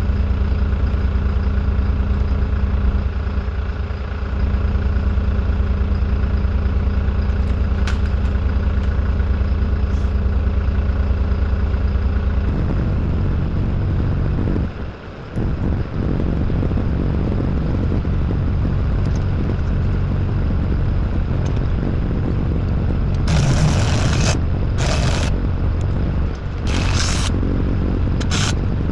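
An engine idling steadily, its sound turning rougher and noisier a little before halfway through. Near the end, short bursts of metal scraping and clattering come through over it.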